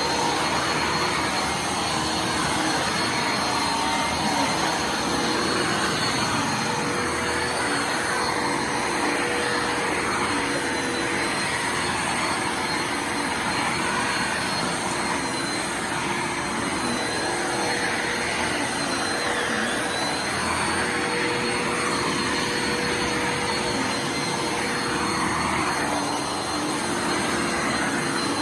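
Bissell Lift-off Multi Cyclonic Pet vacuum cleaner running steadily, its motor giving a constant rushing noise with a steady high whine.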